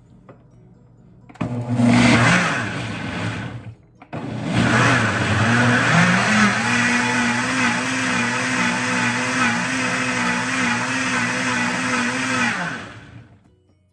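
Countertop blender mixing a liquid batch of evaporated milk, coconut milk and coconut cream. It runs for about two seconds, stops briefly, then runs again for about eight seconds. Its motor pitch rises as it comes up to speed, and it winds down near the end.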